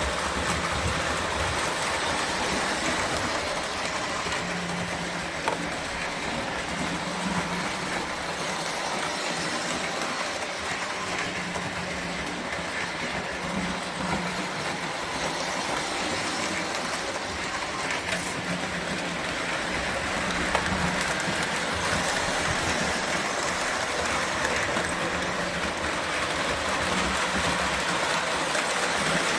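O gauge toy train running on track: a steady rolling rumble of wheels and motor with a hum that swells and fades, and an occasional sharp click.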